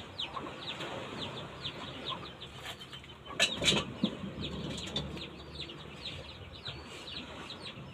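Small birds chirping rapidly and continuously, with two sharp knocks close together about three and a half seconds in, from a mallet striking the wooden boat hull.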